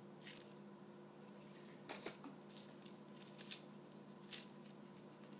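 Faint rustles and soft crinkles of a paper ghost cut-out being folded and pressed together by hand, a handful of brief ones, over a steady faint hum.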